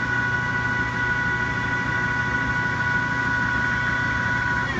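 Chevalier FCL-1840 CNC lathe's spindle running at steady speed under program control, a steady whine of several tones over a low hum. Just at the end the whine starts to fall in pitch as the spindle slows down.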